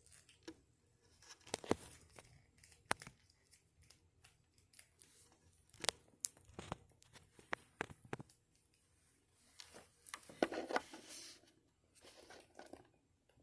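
Plastic action figure being handled and posed: scattered light clicks and taps of its parts and jointed limbs, with a short rustle of handling about ten seconds in.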